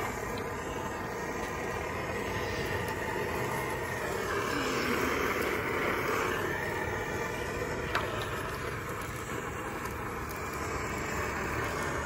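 Coleman 530 pocket stove's pressurised liquid-fuel burner burning under a frying pan with a steady rushing noise, swelling a little about four to six seconds in. A single sharp click about eight seconds in.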